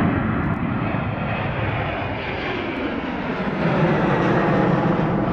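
Jet airliner passing low overhead, its engine noise growing to its loudest about four seconds in, with a whine that slides down in pitch as it goes by.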